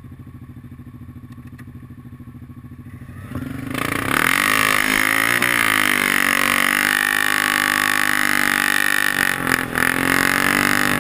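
Yamaha Grizzly 700 ATV's single-cylinder engine idling low, then revved hard about three and a half seconds in and held at high revs under load in deep snow, with a brief dip near the end.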